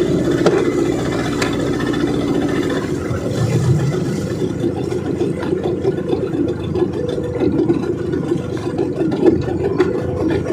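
Small fishing boat's engine running steadily while under way.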